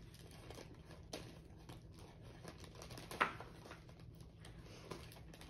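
Scissors cutting open a plastic candy bag: faint snips and crinkling of the plastic, with one sharper snip a little past halfway.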